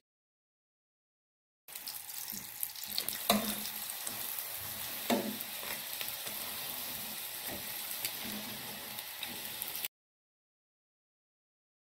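Aloo paratha frying in a pan, a steady sizzle that starts about two seconds in and cuts off abruptly near the end. A metal spatula pressing the paratha against the pan makes a couple of short knocks along the way.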